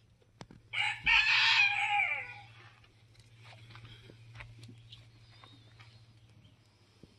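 A rooster crows once, about a second in: one loud call of about a second and a half that drops in pitch at the end.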